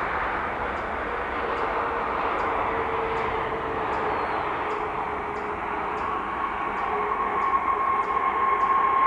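Jet airliner engines running on the ground, a steady rush with a whine that comes in about six seconds in and grows louder toward the end.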